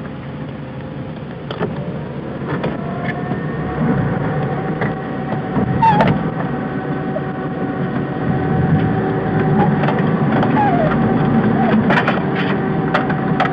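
Car engine running as the car drives slowly over a rough grassy track, heard from inside the cabin, with scattered sharp knocks and rattles from the bumpy ride.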